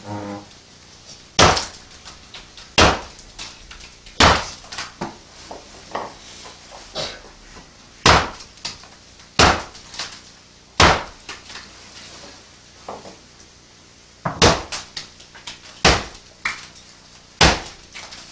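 Repeated sharp impacts on a wooden door as objects are hurled at a target painted on it and splatter, about a dozen hits spaced mostly a second and a half apart.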